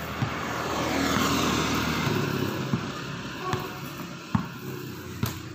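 A motor vehicle passing by on the road. Its noise swells over the first second or two, drops in pitch as it goes past, and fades away. A few short knocks are heard now and then.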